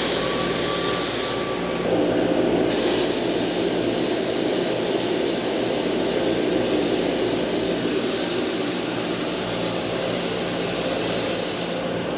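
Steady loud workshop noise: a continuous roar with a low electrical hum underneath, its character shifting abruptly about two seconds in.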